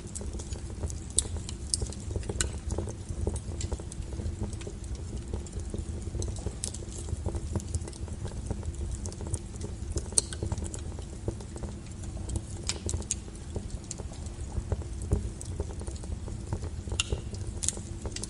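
Wood fire burning: a steady low rumble of flames with irregular crackles and sharp pops of burning firewood.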